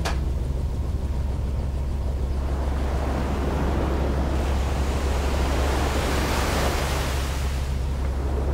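Helicopter in flight, heard from the cabin: a steady low drone with a rush of wind that swells up over the middle and eases near the end.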